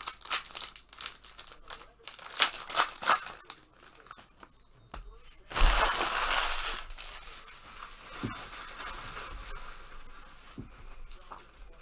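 Plastic trading-card pack wrappers crinkling and rustling in the hands, followed about halfway through by a wrapper being torn open with a sudden loud rip that trails off slowly.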